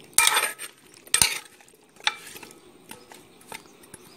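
Spoon scraping and knocking against the sides of a cast iron potjie pot while stirring chunks of carrot and potato in sauce: two loud scrapes in the first second and a half, then a few lighter clinks.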